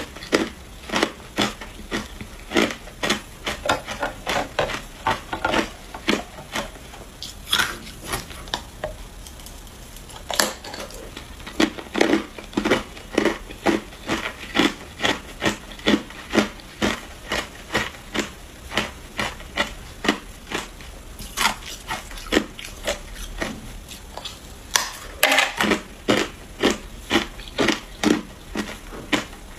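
Hard clear ice being bitten and chewed: a steady run of sharp, loud crunches about two a second, with a pause of about two seconds roughly a third of the way in.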